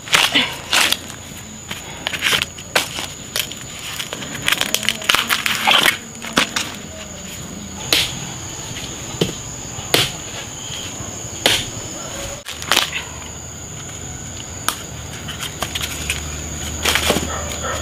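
Bamboo shoots being harvested by hand and with a knife: sharp cracks and knocks at irregular intervals, with rustling and crunching in dry bamboo leaf litter. A steady high thin tone runs underneath.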